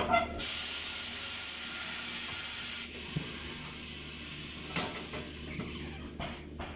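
Compressed air hissing out in a strong, steady rush at tire-shop equipment. The rush begins about half a second in, drops to a weaker hiss about three seconds in, and fades out toward the end, with a couple of knocks along the way.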